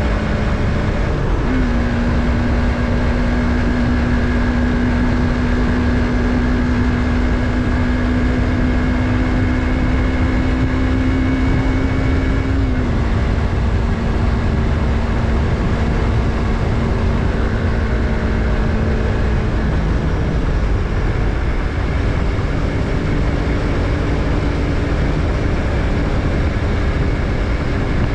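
Yamaha MT-03 parallel-twin engine running at steady riding revs, over a low rush of wind and road noise. Its pitch steps up slightly about a second and a half in, holds, then drops about halfway through and lower again a few seconds later.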